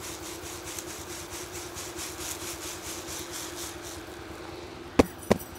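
Wheat grain pattering down in a stream from a shaken winnowing basket into the draught of an electric pedestal fan, over the fan's steady hum. Two sharp knocks near the end.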